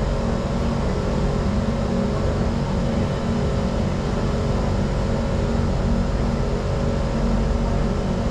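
Steady hum and rumble inside the carriage of a Singapore MRT Circle Line train standing at a station platform, with several steady tones from its onboard equipment.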